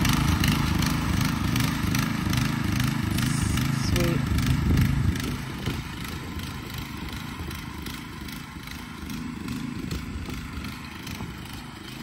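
Small engine of a walk-behind two-wheel tractor running steadily as it pulls a plough through the soil, growing quieter after about five seconds as it moves away.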